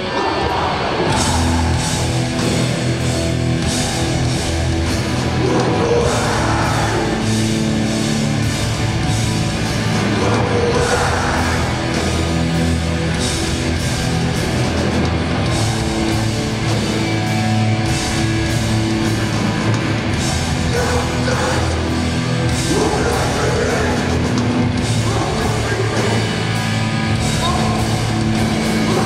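Hardcore punk band playing live: loud distorted guitars, bass and pounding drums, with shouted vocals coming in at times.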